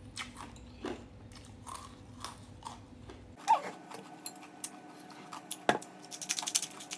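Chewing and crunching a mouthful of shaved-ice dessert, with scattered small clicks. There is one sharp tap late on and a quick run of fine clicks near the end.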